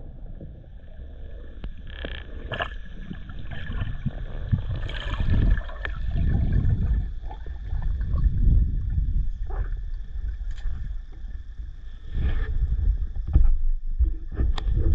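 Muffled underwater sound from a spearfisher's camera: low rumbling water movement that swells and fades, with scattered sharp clicks and knocks and a faint steady high whine.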